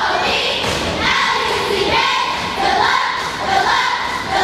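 A crowd of voices shouting and cheering, with children's voices among them, echoing in a large gymnasium, over some low thuds.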